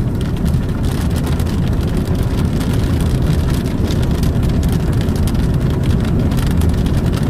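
Steady low rumble of a moving car heard from inside, with scattered ticks of large raindrops striking the car.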